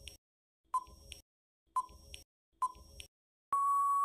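Quiz countdown timer sound effect: short beeps about once a second, then a long steady beep near the end as the timer runs out.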